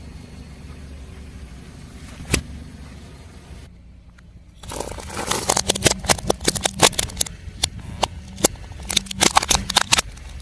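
A car's tyre rolling over and crushing crunchy objects: a low steady rumble, then from about five seconds in a dense run of sharp crackles and snaps that stops shortly before the end.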